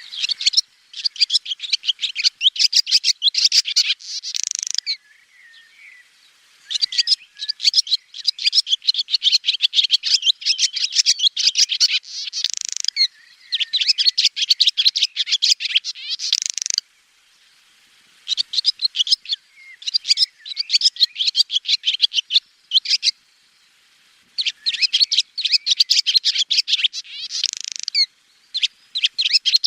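Swallow singing: fast, bright twittering in bouts of a few seconds each, separated by short pauses.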